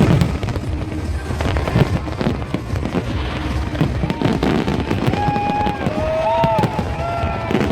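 A fireworks display: a dense, rapid run of bangs and crackles, with music over it and held musical tones coming in over the last few seconds.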